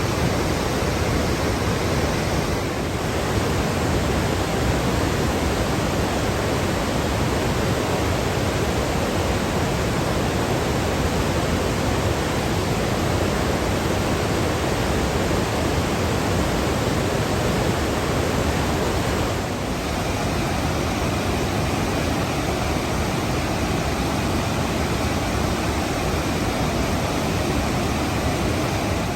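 Waterfall water pouring and crashing as a steady, even rush of noise, with two brief small dips, about three seconds in and again about twenty seconds in.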